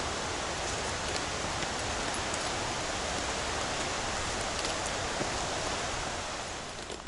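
Turbulent mountain stream rushing down a steep gorge, a steady roar of water that drops away near the end.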